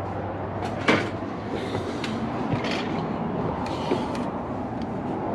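A sharp knock about a second in, then a few lighter knocks and clicks, over a steady rushing background noise.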